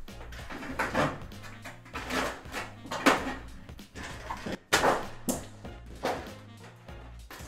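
Thin sheet-metal interior wall panel of a bus being bent and pulled loose by hand, the metal flexing and buckling with a string of irregular crackles and rattles. Background music plays underneath.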